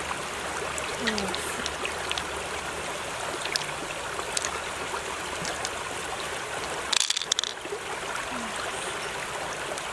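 Steady running water with scattered small hard clicks, and a short burst of sharp clicks about seven seconds in.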